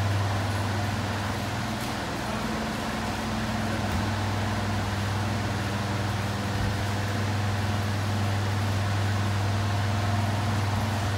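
Steady hum of electric standing fans running, a low drone with even air noise over it.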